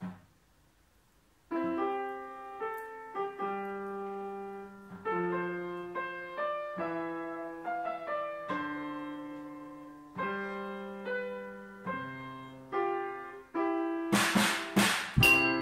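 Grand piano playing a slow ballad introduction, starting about a second and a half in: chords struck and left to ring and fade. Near the end a drum kit with cymbals comes in, louder than the piano.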